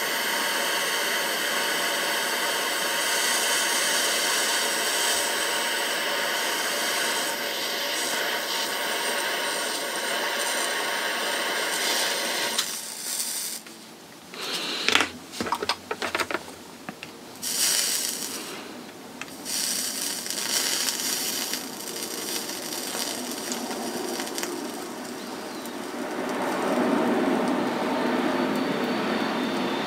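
Cordless heat gun running steadily, its fan giving a hiss with a steady whine, to heat an 8mm bullet connector for soldering. About halfway through it switches on and off in short bursts, and a softer rushing noise follows near the end.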